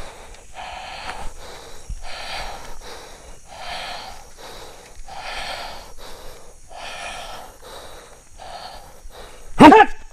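A man breathing hard and forcefully in a steady rhythm, about one heavy breath every second and a half. Near the end comes a short, loud shout, the loudest sound here.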